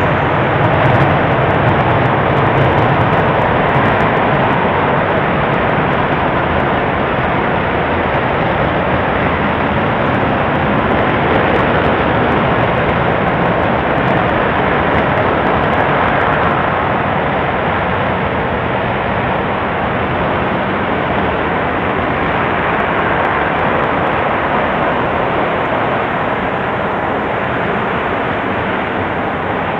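SpaceX Merlin 1D Vacuum rocket engine in a sustained hotfire: a loud, steady, dense rushing noise that grows slightly quieter over the span.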